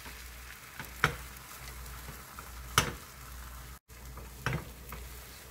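Thin layer of beaten egg sizzling steadily in an oiled rectangular omelette pan over low heat, with three sharp clicks.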